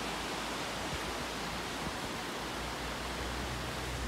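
Steady rushing of a swollen river flowing over stones below a bridge. A low rumble joins in near the end.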